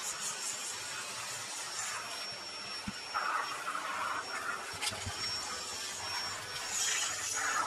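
Vacuum cleaner running steadily, its floor nozzle pushed back and forth over tatami mats, with a thin high whine above the suction hiss.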